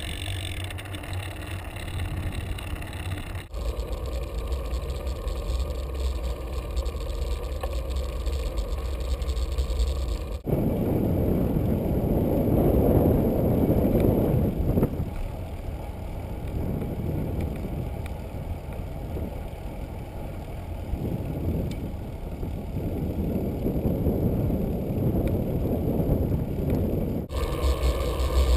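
Wind and road noise on a bicycle-mounted GoPro while riding on pavement: a steady rushing rumble, deep and heavy, that changes abruptly three times.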